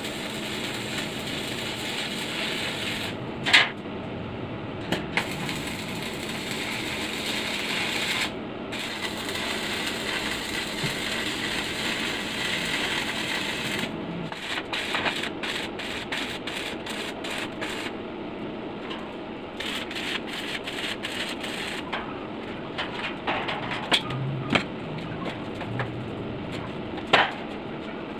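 Stick (arc) welding on a steel tube frame, the arc crackling steadily with one sharp click about three and a half seconds in. About halfway the arc stops, and a string of short clicks and taps follows, with a few sharper knocks near the end.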